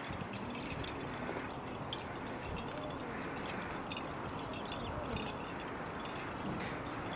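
Steady outdoor background noise with faint, indistinct voices of people standing nearby and a few light clicks.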